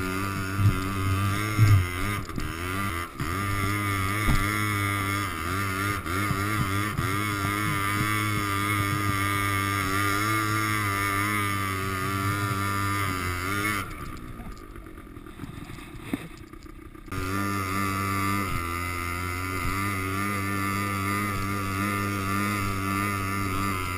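Quad bike engine running at a steady pace close to the microphone while towing a kayak over snow, its pitch wavering slightly. It drops away to a much quieter sound for about three seconds around two-thirds of the way through, then picks up again.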